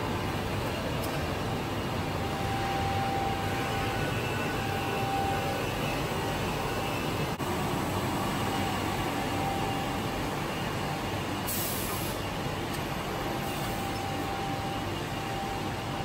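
Automatic glass loading and unloading machine and its roller conveyor running: a steady mechanical hum with a faint whine that comes and goes, and a short hiss about two-thirds of the way through.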